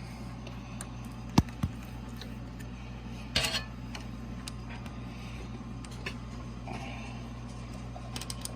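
Metal tools being handled at a workbench: two sharp clinks a little over a second in, then a brief metallic clatter about three and a half seconds in, over a steady low hum.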